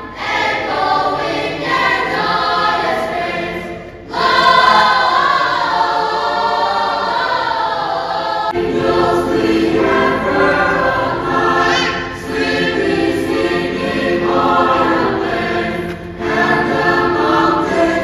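Young Sunday school choirs singing Christmas songs in a church hall. The singing changes abruptly about four seconds in and again about eight and a half seconds in, as the sound cuts from one choir to another.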